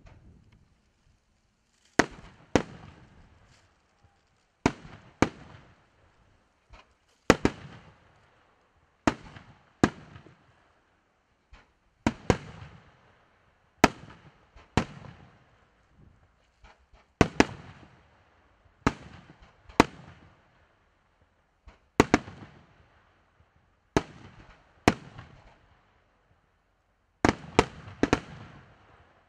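Aerial firework shells bursting: sharp bangs about every two to three seconds, often in quick pairs, each followed by a short fading tail.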